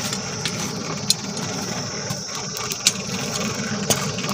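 Steady rumbling rush of air from the forge's blower driving the charcoal fire that heats the iron, with a few sharp clicks about a second in, near three seconds and near four seconds.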